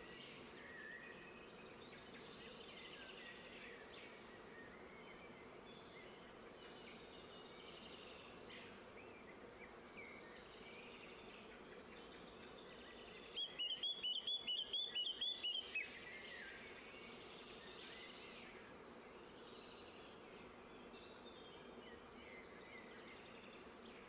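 Faint outdoor birdsong, scattered chirps throughout. About 13 seconds in, one bird gives a louder run of about ten quick repeated notes over some two seconds.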